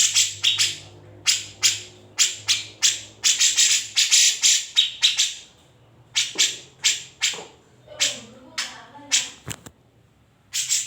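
Grey-cheeked bulbul (cucak jenggot) calling: a run of short, harsh rasping notes, several a second, with two brief pauses.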